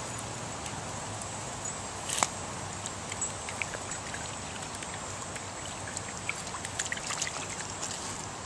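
Shallow stream trickling over stones, with scattered small splashes and drips and one sharper, louder splash about two seconds in.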